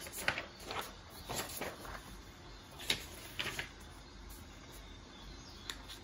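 Sheets of printed paper notes being handled and shifted on a desk, a few short rustles in the first four seconds and one more near the end, over a faint rainforest ambience with birds and insects.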